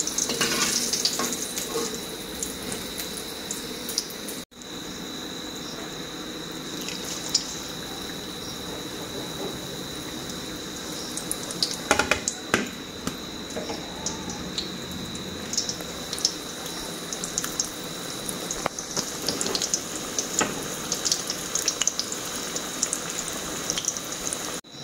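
Lentil kababs frying in shallow oil in a pan: a steady sizzling hiss with scattered small crackles, breaking off for a moment about four seconds in.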